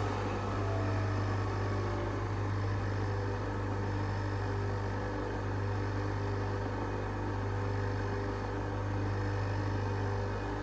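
Nespresso coffee machine running with a steady hum while it brews a capsule.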